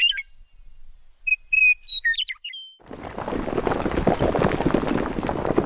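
Birds chirping in short twittering phrases, then about three seconds in a dense crackling, rumbling noise of crumbling concrete and falling rubble takes over.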